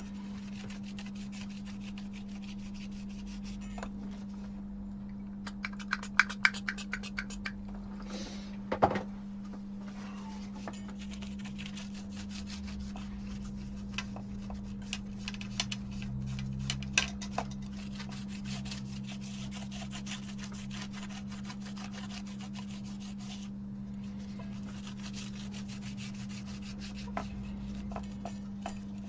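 A screen wipe soaked in isopropyl alcohol rubbing and scratching over the contacts of a remote control's circuit board, cleaning them. There are quick scratchy clicks about six seconds in and a sharp knock about nine seconds in, over a steady low hum.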